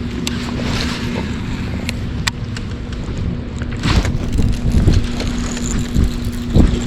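Wind gusting across the microphone, with a steady low hum underneath and a few light clicks; the gusts grow stronger about four seconds in.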